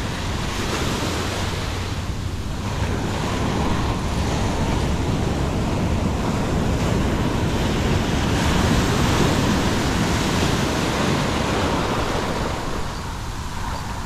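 Ocean surf breaking and washing up a sandy beach, a continuous rush of foaming water that swells louder in the middle and eases near the end.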